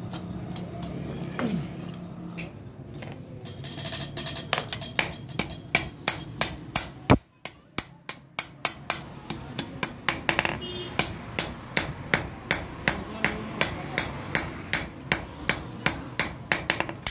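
Hand hammer striking red-hot metal on a steel anvil block, hand forging: sharp ringing blows at a steady pace of about three a second, starting a few seconds in, with a short break about halfway through.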